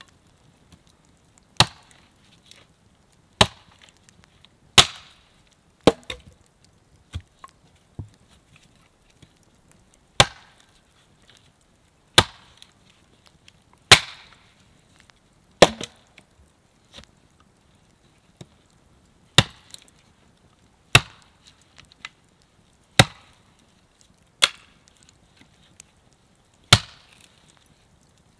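Axe chopping into an upright wooden pole: single sharp strikes at an uneven pace of about one every one to two seconds, some followed by a brief ring.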